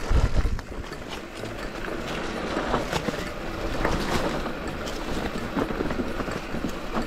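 Full-suspension mountain bike (Rocky Mountain Instinct) rolling down a rough forest singletrack: tyres running over dry leaves and stones, with rattles and knocks from the bike and wind rushing over the camera microphone. A loud low rumble comes in the first half second.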